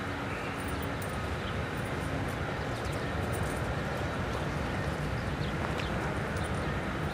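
Steady outdoor background noise: a low, even rushing with faint high ticks scattered through it.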